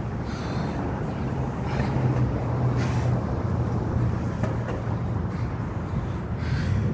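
Steady low rumble of street traffic, with a few short, hissing exhales from a man breathing hard as he lunges.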